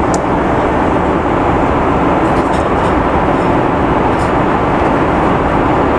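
Steady cabin noise of a Hi Fly Airbus A330 airliner in cruise flight, an even, loud rush of engine and airflow noise, with a few faint light clicks.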